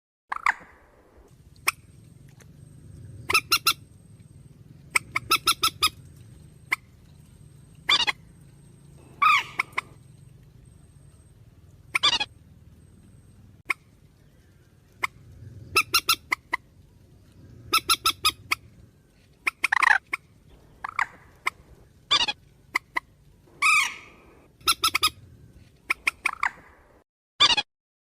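Purple swamphen calls from a bird-lure recording: harsh squawks and rapid cackling bursts, repeated irregularly every second or two, over a faint low hum.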